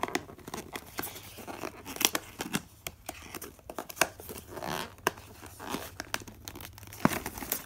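Sticky tape being peeled and torn off a puzzle's packaging, in a series of short rips and clicks.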